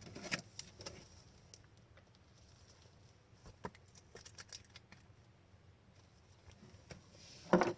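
Faint, scattered rustles and soft ticks of trading cards being handled, with a louder rustle near the end.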